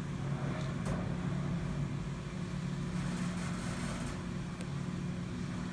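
Schindler 330 hydraulic elevator car travelling up, with a steady, even hum from the hydraulic pump motor and ride noise inside the cab.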